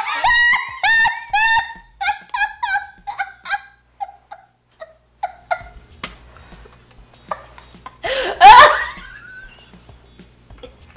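A long fit of high-pitched laughter: a run of about a dozen short pulses that grow shorter, fainter and lower over the first five seconds, then one loud shrieking burst about eight seconds in.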